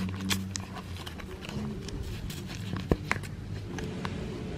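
Hands handling a Louis Vuitton Emilie wallet: soft rustling and a few light clicks, the sharpest about three seconds in. A steady low hum runs underneath, fading about halfway through.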